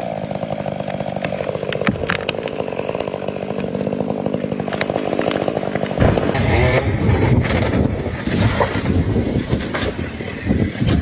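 Chainsaw engine running steadily, then about six seconds in a louder, rough rumbling noise with scattered cracks takes over.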